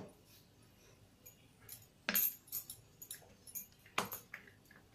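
Wooden rolling pin rolling out a flour-dusted ball of dough on a stone countertop: quiet rubbing and small clicks, with sharp knocks of the pin on the counter about two seconds in and again near four seconds.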